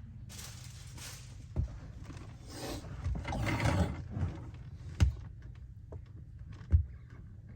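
Two spells of hissing, one short and one longer and louder rustling one, with three sharp knocks over a steady low hum.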